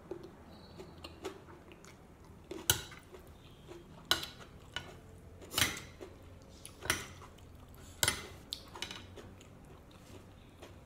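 Close-up eating sounds of a spicy glass noodle salad: chewing, with a fork and spoon clicking and scraping against the plate. About five louder sharp clicks come roughly a second and a half apart through the middle.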